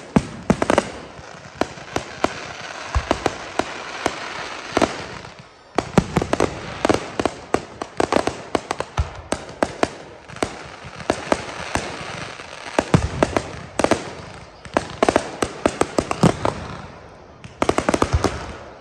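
Aerial fireworks display: a rapid, irregular barrage of bangs and crackling reports over a continuous hiss, pausing briefly about six seconds in and again near the end.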